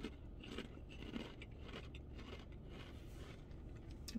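A person chewing a crunchy ridged potato chip (Ruffles) with the mouth closed: faint crunches about twice a second.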